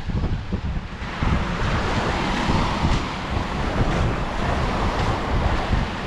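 Small sea waves breaking and washing up a sandy beach; the hiss of the surf swells about a second in. Wind buffets the microphone in low gusts throughout.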